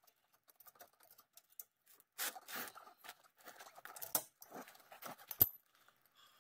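Light clicks, scrapes and rattles of metal brake hardware being handled and fitted at a car's front brake caliper and pad bracket, with one sharp metallic click about five seconds in, the loudest sound.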